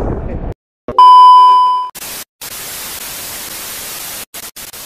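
TV test-card transition effect: a loud, steady, high beep of a test tone for about a second, fading out, then an even hiss of TV static that cuts in and out abruptly a few times.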